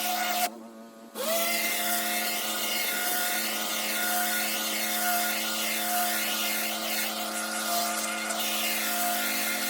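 Pressure washer running steadily, its engine and pump hum under the hiss of the water jet on brick paving. About half a second in, the sound drops away sharply and comes back within a second.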